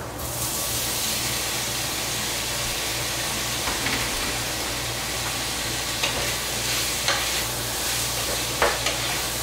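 Seafood sizzling in hot butter and oil in a frying pan, the sizzle starting suddenly as it goes in and holding steady. A few short clicks of stirring come through it.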